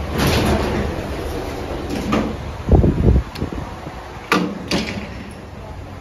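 Mitsubishi lift doors opening as the car arrives at a floor: a sliding rush at first, then heavy clunks about three seconds in and two sharp clicks a second later, over the steady hum of the car.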